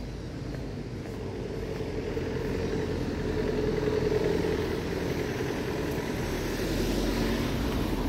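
Street traffic: a motor vehicle passing, its noise swelling to a peak about halfway through and rising again near the end.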